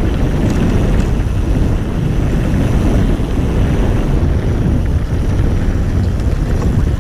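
Wind buffeting the camera microphone along with a Ghost Riot mountain bike's tyres rumbling over a dirt forest trail, ridden at speed. It is a steady, loud, low rumble with a few faint clicks from the bike.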